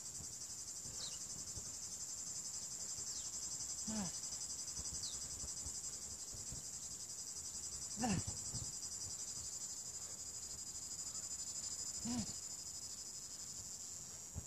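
Steady high-pitched shrill of cicadas. Over it a man working through a kettlebell long cycle set gives a short voiced exhale, falling in pitch, three times about four seconds apart, one breath per repetition.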